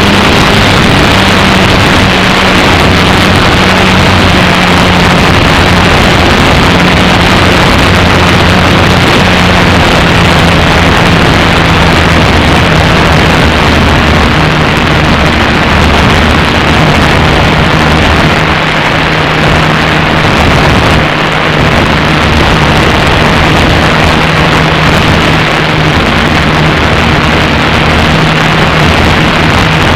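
Electric motor and propeller of an Apprentice S 15e RC trainer plane droning in flight, heard from a camera mounted on the plane under heavy wind rush on the microphone. The drone's pitch eases down a little and shifts a few times with throttle.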